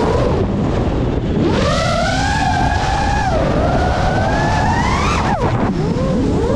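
FPV quadcopter's brushless motors and propellers whining, the pitch sweeping down and up as the throttle is chopped and punched through rolls and dives. The pitch dips sharply at the start, climbs and holds, rises to a peak, drops steeply about five seconds in, then climbs again. Wind rush on the onboard camera's microphone underneath.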